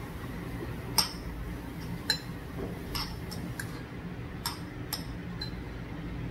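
Metal spoon clinking against a black stone bowl of albap (fish-roe rice) as rice is scooped, about seven light clinks, the sharpest about a second in, over a steady low hum.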